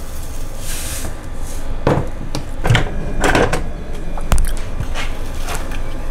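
Sea salt pouring from its container onto peanuts in a slow cooker. Then several knocks and clatters as containers are handled and set down on a kitchen counter, the sharpest a little past four seconds in.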